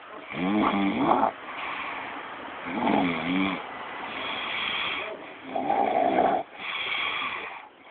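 Snoring in about three breath cycles, roughly every two and a half seconds: each is a loud, pitched, wavering snore followed by a breathier, hissing phase.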